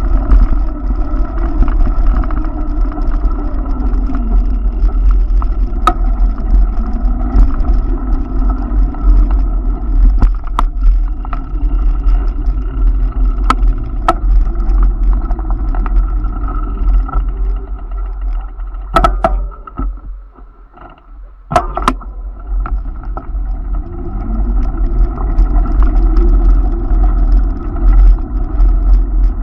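Street traffic on a busy avenue, with cars passing and pulling away, under a heavy low rumble of wind buffeting a moving camera's microphone. Scattered knocks and rattles come through. The sound drops briefly much quieter about twenty seconds in.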